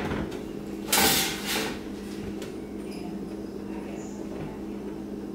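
Cookware handled on an electric stovetop: a brief scraping clatter about a second in, over a steady low hum.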